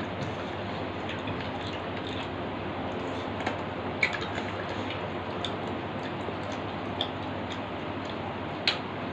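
Eating by hand from steel plates: quiet chewing and mouth noises with a few short, sharp clicks, the loudest about four seconds in and another near the end, over a steady low hum.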